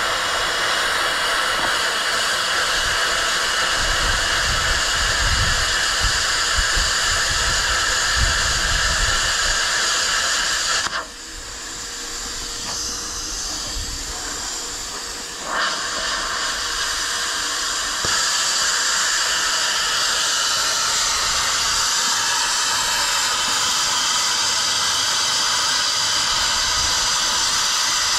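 Handheld plasma cutter cutting steel plate, a steady loud hiss of air and arc. It drops to a quieter hiss for several seconds around the middle while the cutting pauses, then resumes.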